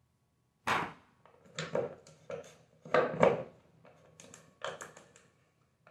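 Clatter of Garen gate-opener motor parts being handled and set on a workbench: a run of sharp knocks of metal and plastic against the aluminium gearbox base and the table, the first about half a second in and the loudest.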